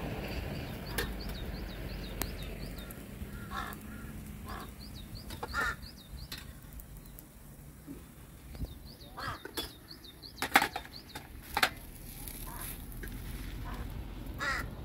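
Crows cawing now and then, with a small bird chirping rapidly in the first few seconds. Sharp clinks of steel plates and a spoon come through, the loudest two just past the middle.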